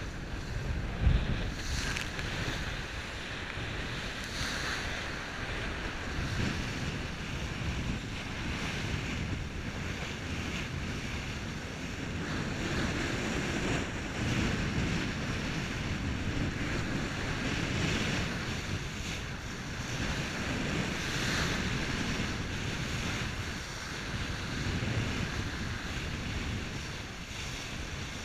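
Water rushing and splashing along the hull of a Bavaria 41 Cruiser sailing yacht as she heels and drives through rough waves, with wind buffeting the microphone. The rush swells and eases every few seconds as waves pass, with a short thump about a second in.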